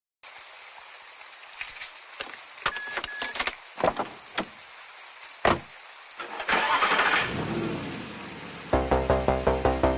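Self-service car-wash pressure washer spraying a car: a low steady hiss with scattered clicks and knocks, two short beeps a little under three seconds in, and a louder burst of spray hiss at about six and a half seconds. Music with a steady beat comes in near the end.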